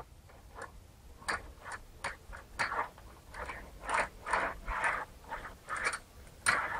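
Hand-held Freund roller sheet bender being worked along the edge of a roofing sheet-metal blank, folding a 10 mm flange. It gives a string of short, irregular clicks and scrapes, about two or three a second.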